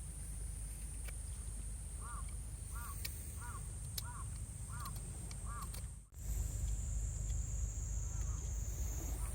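A bird gives six short calls in an even series, about one every 0.7 seconds, over a steady high-pitched hum and a low rumble. The background cuts out briefly about six seconds in and resumes slightly louder.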